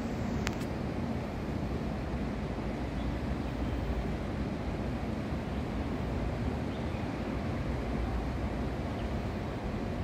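Steady low outdoor background rumble with no distinct source standing out, and a brief sharp click about half a second in.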